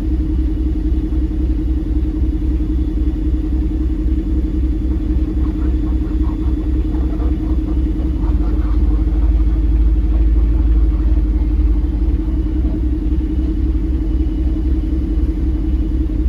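Heavy diesel engine running steadily with a low rumble and a constant hum.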